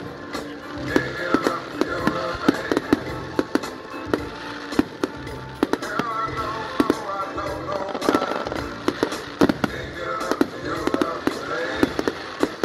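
Fireworks going off in quick succession, several sharp bangs and crackles a second, with music or voices carrying on underneath.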